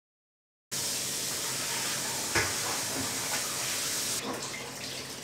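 Tap water running into a stainless steel bowl of raw chicken wings being rinsed by hand, a steady hiss that starts suddenly under a second in after silence. One short knock about two and a half seconds in, and the hiss grows softer about four seconds in.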